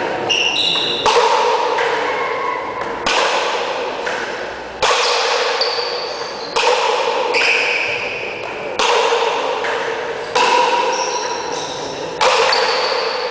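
Sharp pelota paleta ball strikes against paddle and court, about one every two seconds, seven in all. Each hit rings and echoes for a second or more in an enclosed court.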